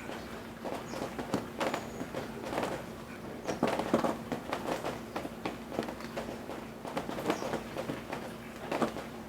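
Rain dripping from roof eaves as the rain eases off: scattered, irregular drops striking and splashing over a light hiss of rain.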